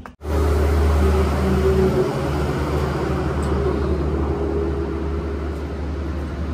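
Steady low engine drone with a deep hum and a few steady tones over it, loudest for the first two seconds and then easing slightly.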